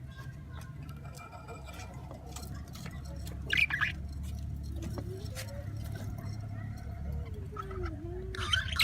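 A pet bird gives a short squawk about three and a half seconds in, with a few faint calls later, over a steady low hum.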